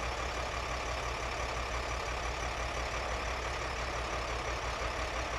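Sewer vacuum truck's engine running steadily, a low even hum, while its hydraulic boom moves the vacuum hose.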